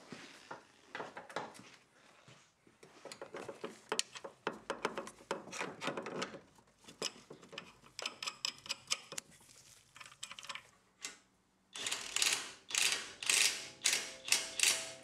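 Hand ratchet wrench clicking in repeated bursts, with sharp metal tool clanks, as the nuts holding a coilover strut are tightened; the quickest, loudest run of clicks comes near the end.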